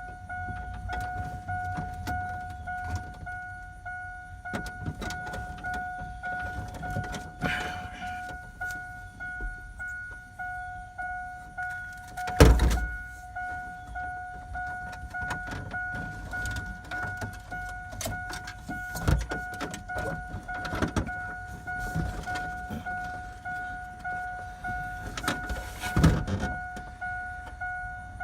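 Scattered clicks, rattles and knocks of a car stereo head unit and its wiring being worked out of a truck's dash, with a loud thump about twelve seconds in and another near the end. A steady electronic tone sounds underneath.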